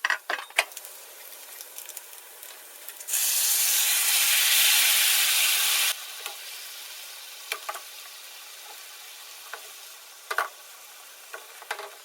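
Food frying in a pan, with a steady sizzle and scattered clicks of a utensil. About three seconds in, a much louder sizzle starts suddenly and cuts off about three seconds later.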